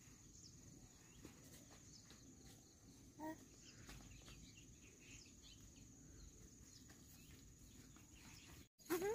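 Faint rural ambience: a steady high insect trill with scattered faint bird chirps, and one brief pitched call about three seconds in.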